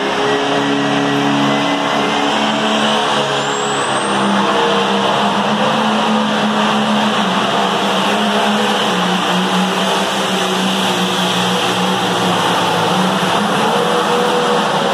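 Pulling tractor's engine running hard under full load as it drags a weight-transfer sled down the track, loud and steady.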